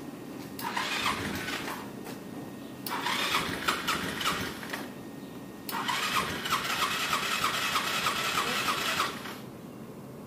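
Motorbike's electric starter cranking the engine in three separate tries, the last the longest at about three and a half seconds, each a whirring with a regular pulse of about four a second. The repeated cranking shows the engine is slow to start.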